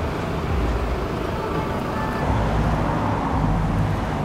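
Traffic noise: a steady low rumble of road vehicles.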